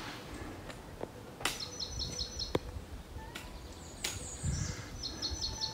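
A songbird singing a quick phrase of evenly repeated high notes, twice: about a second and a half in and again near the end. A few sharp clicks and a soft low thump come in between.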